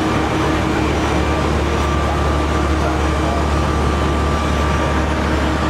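Fire apparatus diesel engines running steadily, a continuous low drone under a dense haze of street noise.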